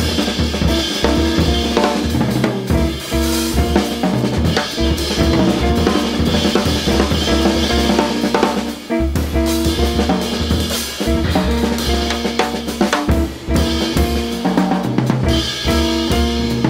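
Small jazz group playing live, with the drum kit to the fore (snare, bass drum and rimshots) over double bass and archtop electric guitar.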